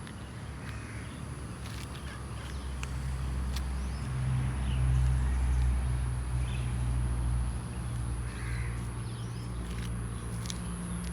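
Outdoor ambience: a low engine rumble that swells about halfway through and then eases off, with a few faint bird calls and scattered small clicks.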